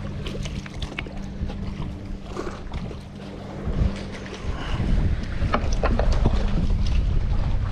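Wind buffeting the microphone over a steady low hum, with a few short splashes as a hooked channel catfish thrashes at the surface and is lifted out of the water. The wind rumble grows louder over the second half.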